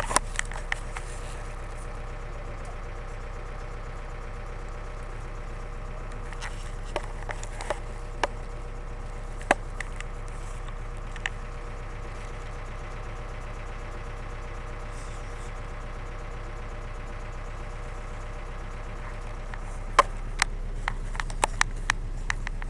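Bus engine running steadily while the bus drives a rough dirt road, with scattered sharp knocks and rattles as it jolts. The knocks come a few at a time midway and in a quick cluster near the end.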